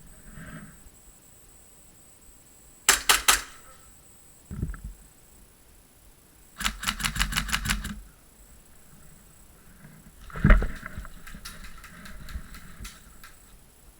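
Airsoft guns firing in rapid bursts. A short burst of about five shots comes about three seconds in, a longer burst of about ten shots follows around the middle, and fainter bursts come later. A dull thump sounds about ten and a half seconds in.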